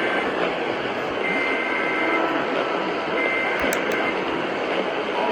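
Emergency Alert System SAME header: screeching digital data bursts about a second long with about a second between them (the end of one, then two more), over a steady hiss. The two-tone attention signal starts right at the end.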